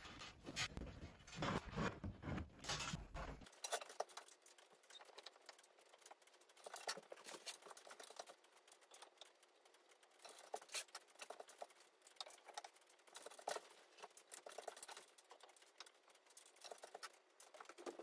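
Faint, scattered light clicks and knocks of bear skulls being handled and hung on wooden wall plaques.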